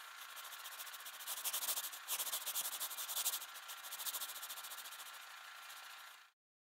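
Seismograph stylus scratching across recording paper as it draws a trace: a rapid, fine scratching that swells louder in the middle, fades, and cuts off near the end.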